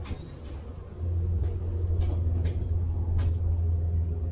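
Road rumble of a bass boat riding on its trailer behind a pickup truck: a steady low drone that gets louder about a second in, with several sharp knocks and clicks from the rig over bumps.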